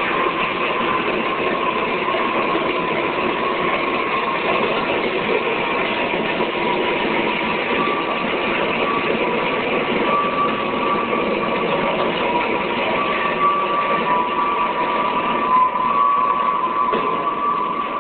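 Live electronic noise music: a dense, steady wash of noise with two close high tones held through it, the tones growing a little stronger partway through.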